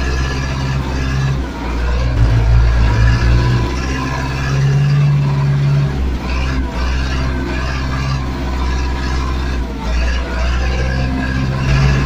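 Zetor 6340 tractor's four-cylinder diesel engine running, heard from inside the cab, its note shifting up and down a few times.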